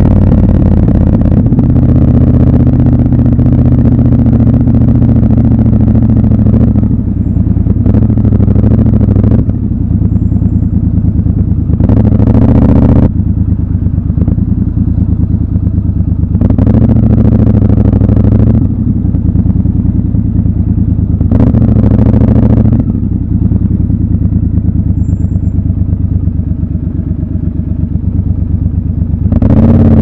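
Triumph Scrambler 1200 XC's parallel-twin engine running at low speed. It pulls steadily at first, then falls back to a lower note between several short bursts of throttle, and opens up again near the end.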